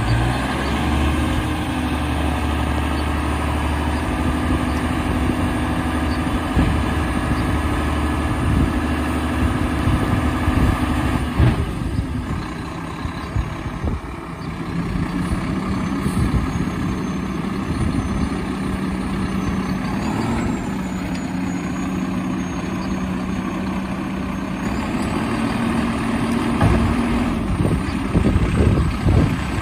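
Mack LR refuse truck with a Labrie automated side-loader body, its diesel engine running steadily at low speed. The engine note shifts about halfway through, and there are some irregular knocks near the end.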